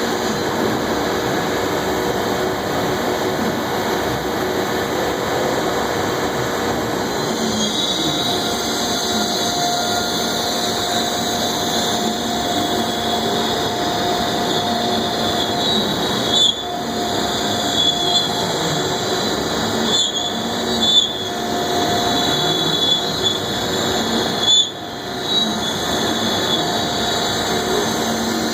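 AXYZ Series 4008 CNC router running under power: a steady mechanical hum with a higher whine that joins about eight seconds in, broken a few times in the second half by brief dips and clicks.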